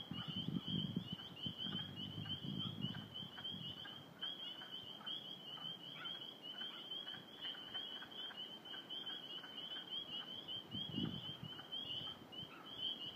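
Spring peepers calling in a dense chorus, many short high peeps overlapping into a steady shrill band. Low rumbling sounds come and go in the first few seconds and again near the end.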